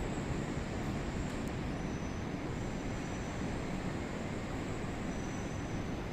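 Passenger lift car travelling down its shaft: a steady low rumble and hiss, with a faint high whine that comes and goes.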